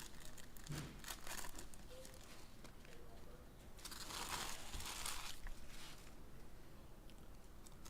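Trading-card pack wrappers crinkling and tearing as packs are opened, with a longer, louder stretch of rustling about four seconds in.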